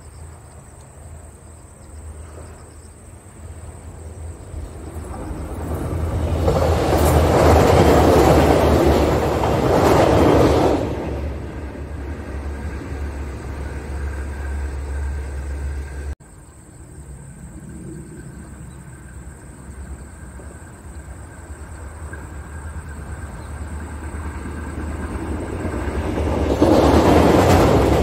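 Korail RDC diesel railcar (Mugunghwa-ho) approaching a steel girder bridge: a steady low diesel drone under a rising rumble of wheels on rail. The rumble swells loud for a few seconds near the middle, cuts off suddenly, then builds again to its loudest near the end as the train rolls onto the bridge.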